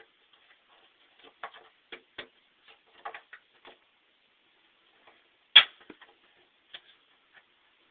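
Irregular light clicks and knocks of mounting hardware being handled and fitted, as the kit's U-clips go onto the truck frame, with one sharper knock about five and a half seconds in.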